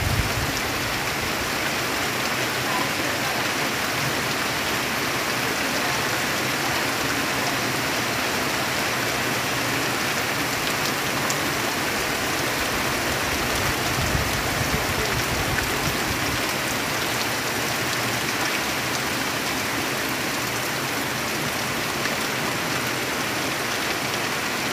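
Heavy rain pouring steadily onto trees and broad banana leaves, a constant even hiss of rain.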